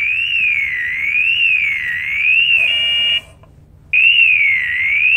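A firefighter's PASS (personal alert safety system) distress alarm, manually switched on, sounding a loud warbling tone that sweeps up and down about once a second. It changes briefly to a steadier tone, breaks off for under a second about three seconds in, then resumes.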